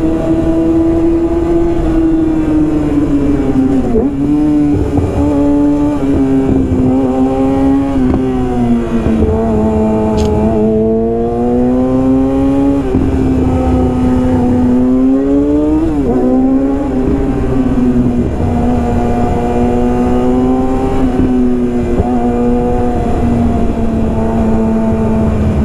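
Yamaha R6's inline-four engine through a full Yoshimura exhaust system, running at high revs while the bike is ridden. The pitch sags and climbs with the throttle, with a few quick gear changes about four to six seconds in and a sharper one past the middle.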